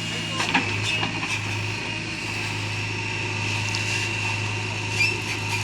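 JCB 3DX backhoe loader's diesel engine running steadily under work, with a sharp knock about half a second in and another near the end.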